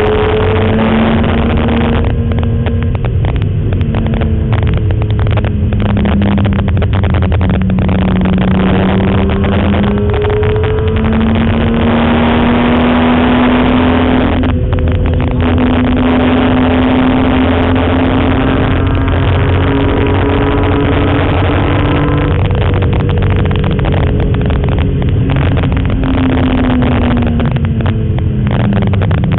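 BMW M3 race car's engine heard from inside the cabin while lapping a road course: its note climbs as the car accelerates and drops back several times at gear changes, over steady road and wind noise.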